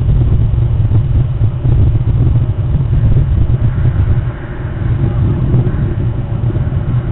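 Wind buffeting the outdoor nest camera's microphone: a continuous low rumble that swells and dips unevenly.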